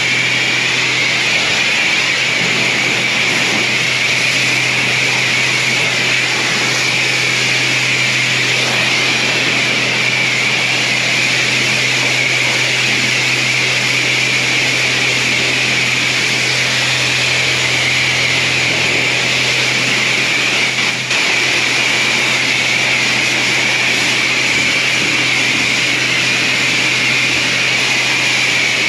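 High-pressure spray wand of a self-serve car wash bay blasting mud and water off the bay floor: a steady, loud hiss with a constant low hum underneath.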